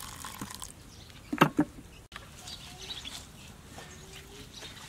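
Hot water poured from a jug onto grated coconut in a cloth-lined bowl, the splashing hiss ending within the first second. Two sharp knocks come about a second and a half in. After them, hands knead the wet grated coconut with faint rustling, while birds chirp.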